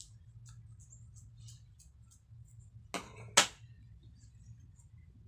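Faint snipping and crinkling as a plastic sauce sachet is cut open with scissors, then two sharp clicks about three seconds in, half a second apart, the second louder.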